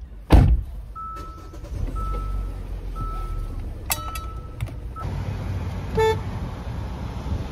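A loud thump, then a car's warning chime, a short single tone sounding about once a second for around four seconds, over a low engine rumble. About six seconds in comes one brief car-horn toot.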